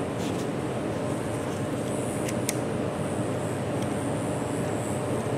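Steady, even rushing background noise with a few faint clicks, two of them close together about two and a half seconds in.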